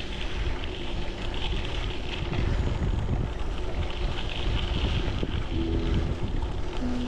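Wind buffeting the microphone over a steady rushing noise. Soft held musical notes come in about five and a half seconds in.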